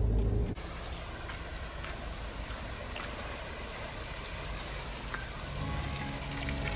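Off-road 4x4 on a wet, muddy trail: a low engine drone that drops away suddenly about half a second in, then a steady rushing, crackling noise of tyres working through mud and water, with the engine hum coming back near the end.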